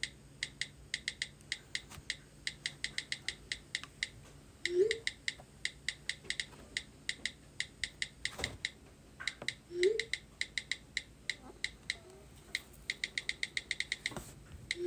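iPhone on-screen keyboard clicks: runs of quick, crisp taps, several a second, as a text message is typed. A short, low rising tone, louder than the taps, sounds about every five seconds.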